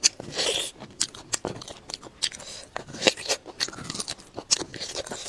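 Close-up eating sounds of a lamb marrow bone: short, irregular wet smacks, sucks and chewing clicks as the marrow is sucked out and chewed.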